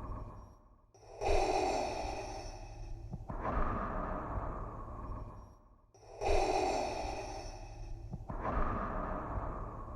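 Darth Vader's respirator breathing sound effect, a hissing mechanical breath through a mask regulator. There are two full slow in-and-out breath cycles, each about five seconds long, with a short pause between them.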